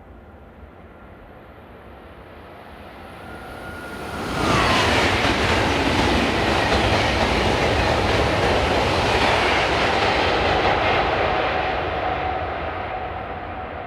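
KTX high-speed train passing at speed: a rising rush of wind noise as it approaches, turning suddenly loud as it goes by, with a brief falling tone. The loud rush of air lasts several seconds, then fades as the train moves away.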